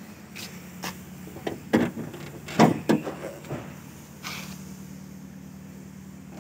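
Bonnet of a Proton Satria Neo being opened: a run of clicks and clunks from the latch and lid, with a few loud knocks between about two and three seconds in. Under it runs a steady low hum, the 1.6 CamPro four-cylinder engine idling.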